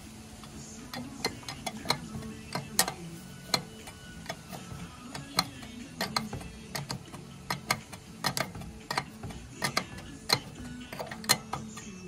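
Wrench clicking against the brake-line flare nuts on a master cylinder as the fittings are worked loose, sharp metal clicks coming at an irregular pace, one to three a second.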